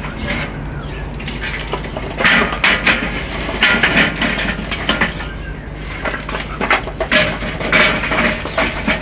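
Metal grill tongs moving glowing charcoal into the charcoal baskets of a kettle grill: irregular clinks, scrapes and crunches of coals knocking against the metal.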